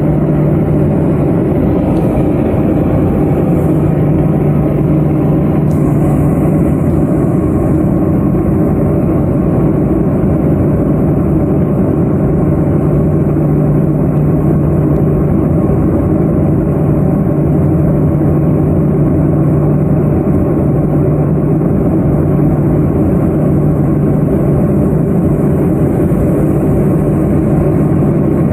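Twin turboprop engines of an L-410 Turbolet aircraft running with a steady, loud drone.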